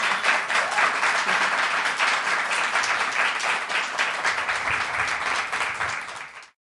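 Studio audience applauding steadily, cut off suddenly near the end.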